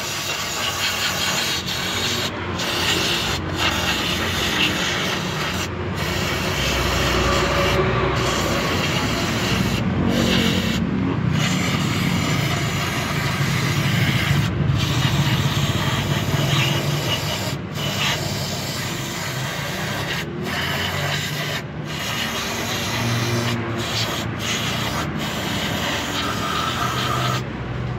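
Aerosol cleaner spray can with a straw nozzle hissing in long bursts, broken by many brief pauses, as it is sprayed onto the oil-soaked distributor mounting of an engine to wash away leaked oil.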